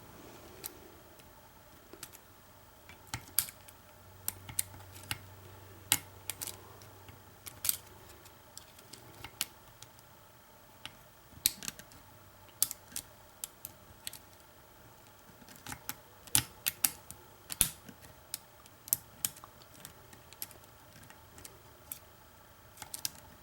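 Irregular sharp clicks and light taps, sometimes bunched in quick runs: a car ignition lock cylinder and lock-picking tools being handled.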